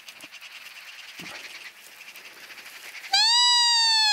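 Faint chattering of Eurasian magpies, then about three seconds in a loud, high squealing call that holds for over a second before it bends down in pitch.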